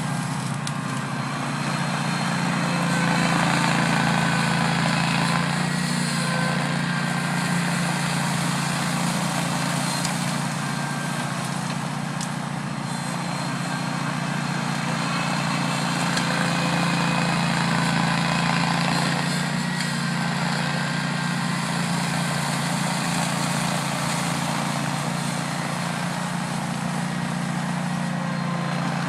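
Ventrac 4000-series compact tractor's air-cooled 31 hp gas engine running steadily under load as its front mower deck cuts through tall brush and grass.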